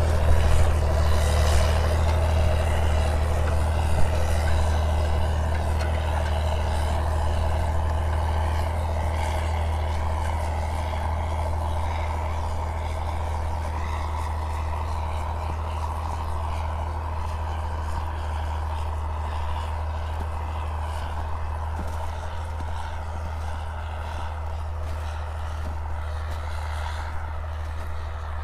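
HTZ T-150K tractor's diesel engine running steadily while it pulls a tillage implement across a field. A low, even drone that slowly fades as the tractor moves away.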